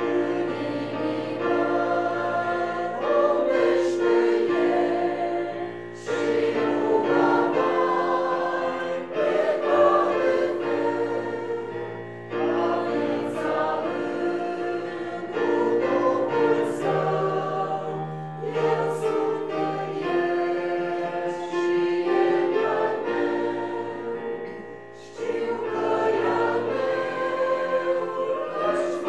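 A congregation or choir singing a hymn together, several voices at once, in phrases of a few seconds with short breaks between.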